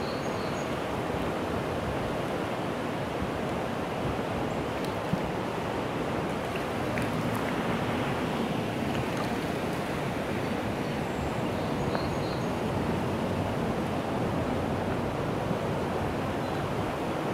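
River running fast and high after heavy rain, a steady rushing of water.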